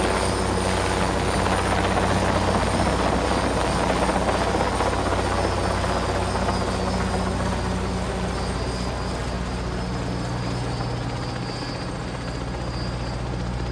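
Helicopter rotor and engine running steadily during a lift, gradually getting quieter over the second half.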